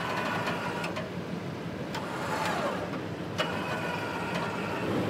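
Nissan pickup truck's engine running steadily while the truck is pulled off a rock, with a few sharp clicks and knocks. A higher whine comes and goes twice.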